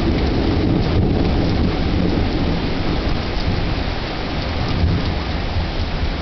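Heavy rain pouring down with a long, low rumble of thunder that gradually fades.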